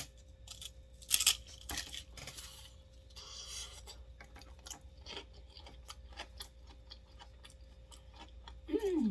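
Crunching and chewing of a fried wonton chip scooped through hot, cheesy crab rangoon dip, with many small crackles and a few louder crunches in the first few seconds. Near the end comes a short falling "mm" from the eater.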